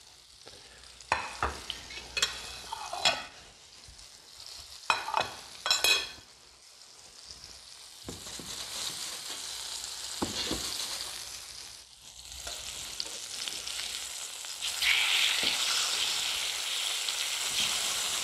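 A few sharp clinks and knocks of ceramic plates being moved in the first six seconds, then red snapper fillets sizzling in hot oil and clarified butter in a skillet. The sizzle grows and gets louder about two-thirds of the way in as a slotted spatula works at the fillets in the pan.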